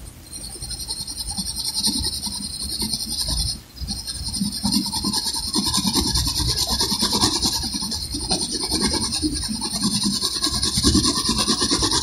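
Graphite pencil shading on paper: a continuous scratchy rasp of fast back-and-forth hatching strokes, with a brief break about three and a half seconds in.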